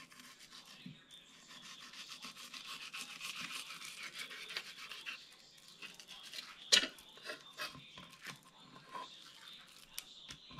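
Fillet knife scraping and sawing along a bluegill fillet on a wooden cutting board as it is cut free of the skin: a fast, scratchy rasping for the first half or so. About two-thirds through comes a single sharp knock, then a few lighter clicks.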